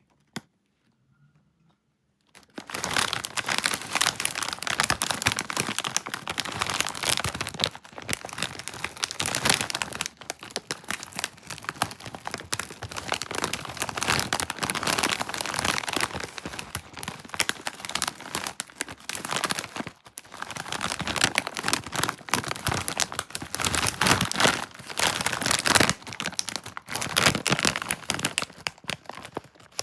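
Plastic snack packaging crinkling and rustling as it is handled and opened, starting about two seconds in and going on almost without a break.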